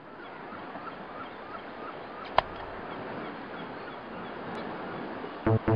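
A steady rushing outdoor-style ambience fading in, with faint bird-like chirps repeating about twice a second early on and a single sharp click about two and a half seconds in. Electronic music with a heavy beat starts just before the end.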